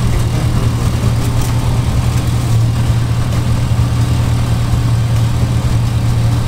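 A GMC pickup truck's engine idling steadily, heard close up under the open hood, with a constant low hum.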